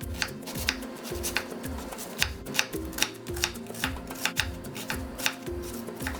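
Hot peppers being crushed for a seasoning paste: steady, rhythmic knocks about two to three a second, over background music.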